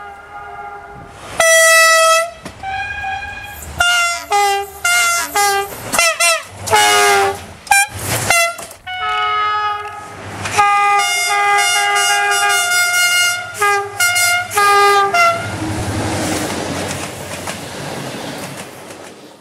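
A quick succession of train horn blasts at different pitches, about a dozen, many cut off abruptly. One bends in pitch and one is held for about three seconds. Near the end the horns give way to the rushing rumble of a passing train, which stops abruptly.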